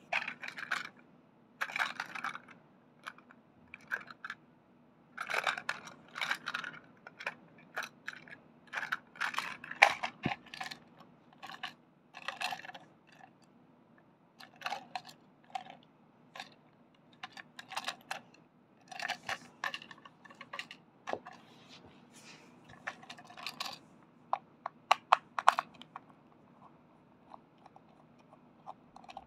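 Hard plastic Plarail 700 series Shinkansen toy train cars handled by hand: irregular clicks, clatters and scrapes as the cars are lifted apart and turned over.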